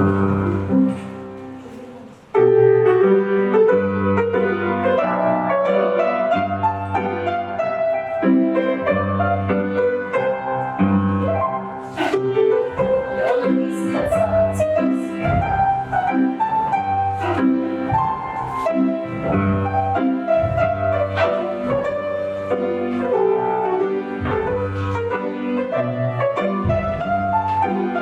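Piano music with a steady beat, the accompaniment for a folk-dance barre exercise. It stops briefly and then begins again about two seconds in.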